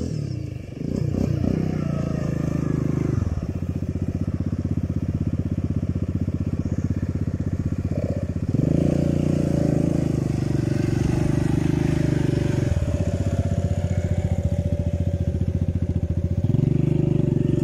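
Quad bike engine running close by, its note stepping up and down several times as it is revved and eased back: it rises about a second in, drops near three seconds, picks up again around eight and a half seconds, and eases near thirteen.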